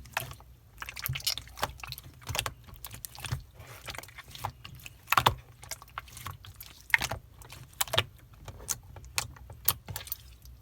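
Clear slime being squeezed and pressed by hand, giving off irregular sharp clicks and pops, several a second.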